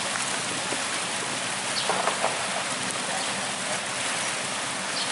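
Steady rush of churning, splashing river water.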